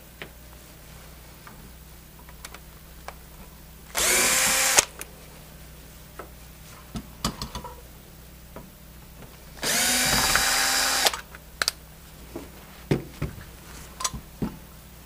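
Cordless screw gun running in two short bursts, about four seconds in and again near ten seconds, the second one longer, backing out the screws that hold the valve handles on a refrigeration charging manifold. Light clicks and knocks of handles and parts being handled come in between.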